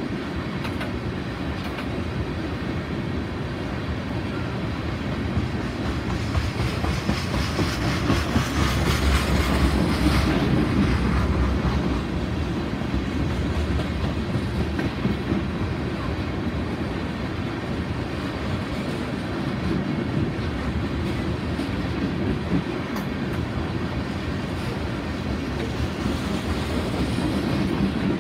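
Open-top hopper cars of a freight gravel train rolling past, a steady rumble with the wheels clicking over the rail joints. It grows louder for a few seconds from about six to twelve seconds in, then settles back.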